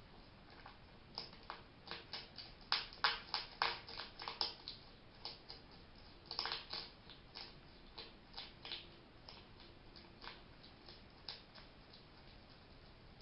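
Hedgehog making a run of short, sharp sneeze-like puffs, several a second, thickest a few seconds in and again around the middle, then thinning out. The uploader first feared it was sick or sneezing and has since learned it is a sign that the hedgehog is happy.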